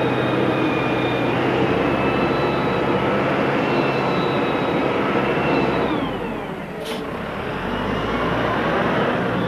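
Wheel loader's diesel engine running with a steady mechanical whine over it; about six seconds in the pitch falls and the sound briefly drops, then it rises again.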